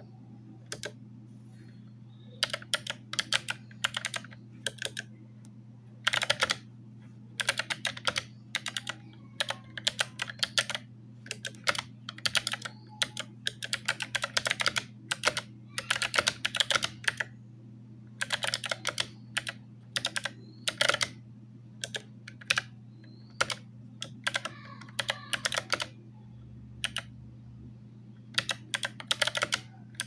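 Fast typing on an Armaggeddon SMK-2C mechanical keyboard with clicky blue switches: quick runs of key clicks in bursts, with short pauses between them, over a steady low hum.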